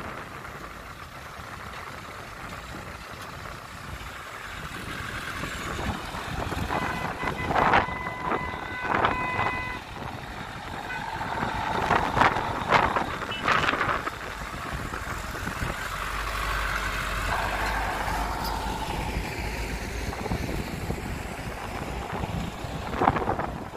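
Dump truck engines running as the trucks move across the dirt, with a horn tooting several short times about a third of the way in. Several sharp knocks and bangs stand out over the engines, and the engine sound deepens and gets louder for a few seconds after the middle.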